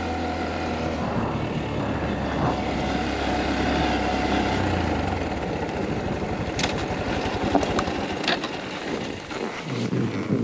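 Honda Monkey 125's air-cooled single-cylinder four-stroke engine running as the bike is ridden. The steady engine note fades about halfway through as it slows, and a few sharp knocks follow in the second half.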